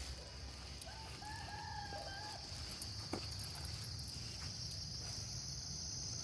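A rooster crows once, about a second in, with a long held call, over a steady high-pitched drone of insects.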